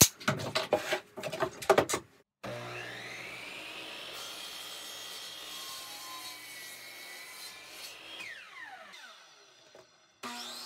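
Craftsman miter saw spinning up with a rising whine, cutting across a pine board, then winding down with a falling whine. A second spin-up starts just before the end. Before the cut come a few sharp clicks and rattles as the tape measure is handled.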